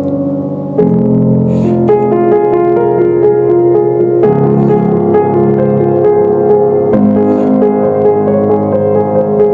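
Instrumental piano music, chords changing every second or so.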